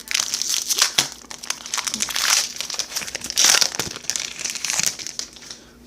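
Wrapper of a baseball card pack crinkling and tearing as it is opened, in several crackling bursts.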